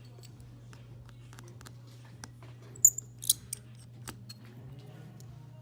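Light clicks and taps of a precision screwdriver on the tiny screws of an iPhone XS Max earpiece and Face ID bracket, with two sharper ticks about three seconds in, over a faint steady hum.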